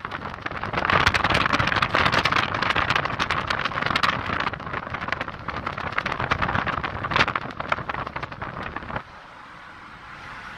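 Rushing wind and road noise from a moving car, buffeting the phone's microphone with many crackling clicks. About nine seconds in, it drops suddenly to a quieter, steady hiss.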